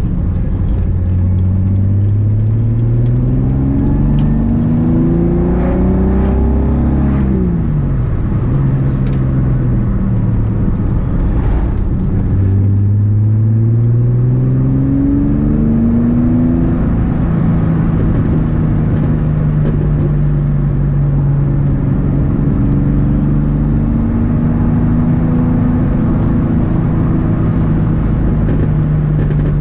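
VW Golf Mk2's VR6 narrow-angle V6 engine and exhaust, heard from inside the cabin while driving. The engine pulls up through the revs, eases off about seven seconds in, accelerates again around twelve seconds in, and from about seventeen seconds settles to a steady cruise.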